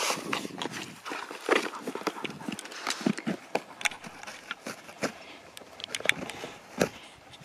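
Husky chewing and tearing at a cardboard parcel: irregular crackles, rips and taps of the cardboard under his teeth.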